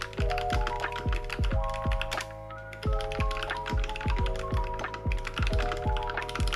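Typing on a Vissles V84 wireless mechanical keyboard: a quick, uneven run of key clicks over background music with sustained chords and a bass line.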